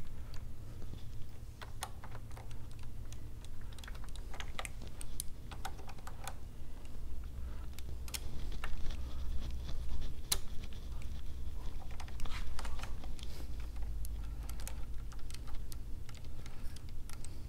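Scattered light metallic clicks and taps of bolts being screwed into a Harley-Davidson Sportster engine, over a steady low hum.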